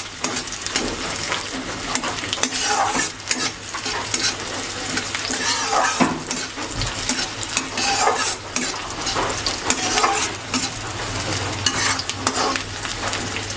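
Sliced onions frying in mustard oil in a karahi, sizzling steadily, while a metal spatula stirs them with repeated scrapes against the pan.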